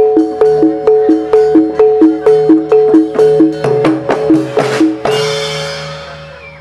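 Music: a fast, even pattern of pitched percussion strikes alternating two notes, about four a second. It swells into a crash about five seconds in, then fades out.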